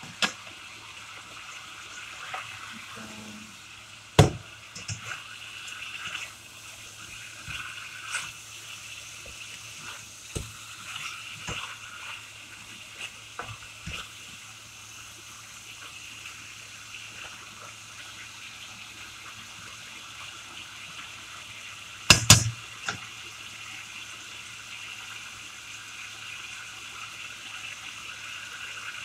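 Chicken pieces sizzling in a frying pan, a steady hiss, while a slotted spatula stirs them and knocks against the pan several times. The loudest knock comes about four seconds in, and a quick cluster of knocks comes about 22 seconds in.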